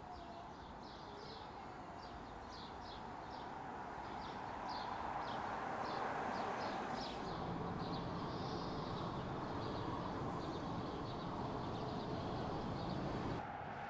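Birds chirping in repeated short high notes while a Mercedes-Benz EQS 580 electric saloon drives past with no engine sound, only a hushed tyre and road noise. The car's noise grows louder from about four seconds in and holds steady until it cuts off sharply near the end.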